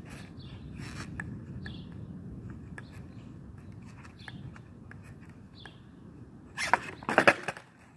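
Skateboard on an asphalt street: a low rolling rumble with light clicks, then the board clacks loudly against the pavement several times near the end, as it lands wheels-up after a trick attempt and is flipped back over.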